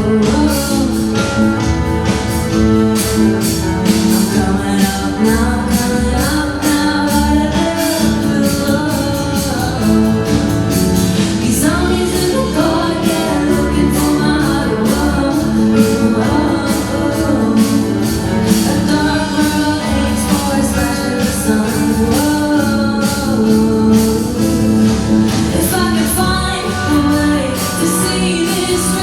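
A solo singer performing live with instrumental accompaniment, drums keeping a steady beat under the vocal line.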